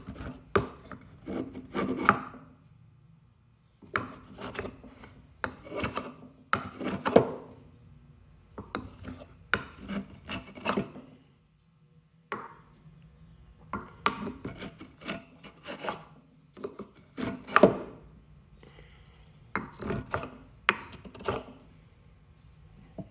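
Cheap Japanese hand plane shaving chamfers along the edges of a wooden mallet head: a series of short scraping strokes, with a few brief pauses between runs.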